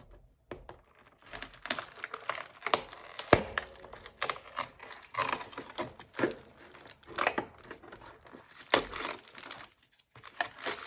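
Cardboard advent calendar door being torn and pried open, with the packaging inside crinkling, in irregular crackles and scrapes. There is one sharper snap about three seconds in and a short pause near the end.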